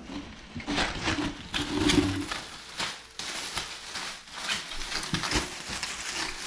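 Thick large-bubble plastic bubble wrap crinkling and rustling as it is folded and pushed into a cardboard box, with irregular crackles and scuffs against the cardboard.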